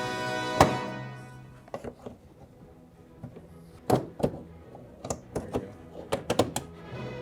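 Background music that stops with one loud thunk about half a second in, followed by a series of sharp, irregular clicks and knocks, with a cluster near the end: hands and tools handling hard parts during a headlight bulb change.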